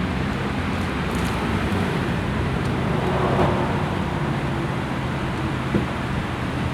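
A car engine running steadily at idle, a low even hum under a wash of background noise.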